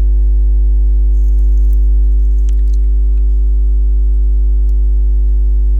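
Loud, steady electrical mains hum, a low drone with a stack of overtones, with a few faint clicks about one to three seconds in.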